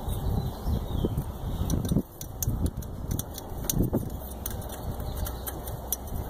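Scattered light clicks and ticks of hands handling small metal and plastic parts in a car's engine bay, over a steady low rumble.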